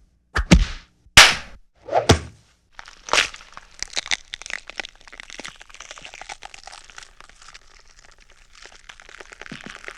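Sound-effect impacts and breakage: about five sharp, loud cracking hits in the first three and a half seconds, followed by a long run of small crackling and crunching sounds.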